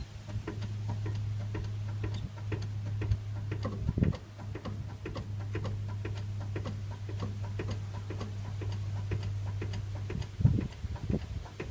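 Light metallic clicking, a few ticks a second, over a steady low hum that stops near the end, with a louder knock about four seconds in and another just before the hum cuts out.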